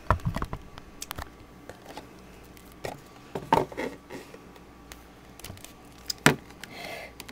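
Handling noise from a plastic toy figure and a box being moved about: scattered clicks and knocks, the loudest just at the start, about halfway and near the end.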